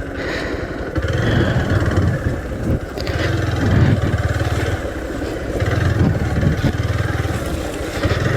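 Hero Xpulse 200T's single-cylinder engine running as the bike is ridden over a rough, broken road. The throttle opens and eases off several times, so the engine note comes and goes.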